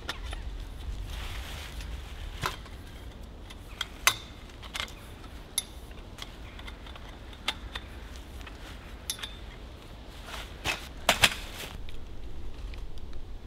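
Metal tent pole sections knocking and clinking as they are handled and fitted together: sharp, irregular clacks every second or so, with a cluster of louder ones near the end.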